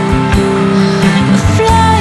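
Background music: a band track with a steady beat and sustained notes.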